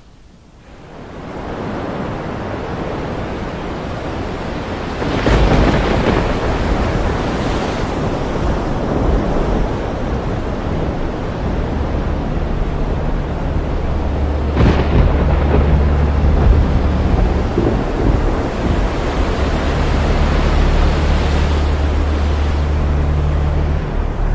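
Heavy rain fading in, with a thunderclap about five seconds in and another near the middle. A low, steady drone sits underneath from about halfway on.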